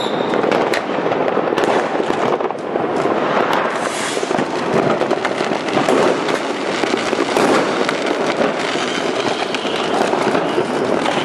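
Many fireworks and firecrackers going off at once: a steady, dense din of overlapping pops, crackles and bangs, with no break.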